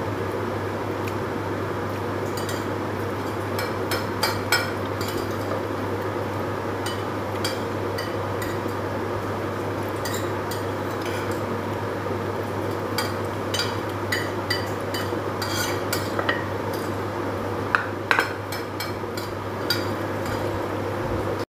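A person eating with his hand: chewing and lip-smacking, with many scattered soft clicks and a few sharper ones near the end, over a steady low hum.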